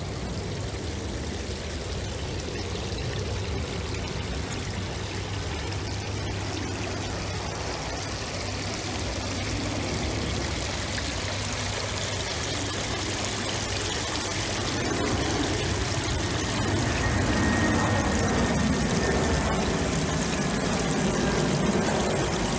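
Water trickling and pouring steadily over the edges of shallow stone steps into a garden pond. A low rumble underneath grows louder in the second half.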